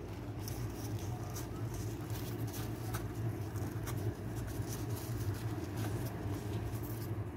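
Fine crackling and rustling as a crisp deep-fried bhatura is torn apart by a hand in a plastic glove, over a steady low hum.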